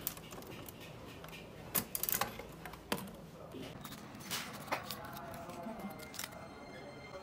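Sharp plastic clicks and clacks from a capsule-toy machine's crank being turned and from handling the small plastic toy it gave out, with faint music underneath.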